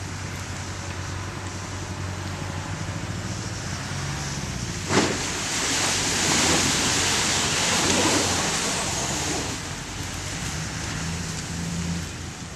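Off-road 4x4 engine running steadily at low revs, with a sharp knock about five seconds in, followed by a few seconds of louder rushing noise.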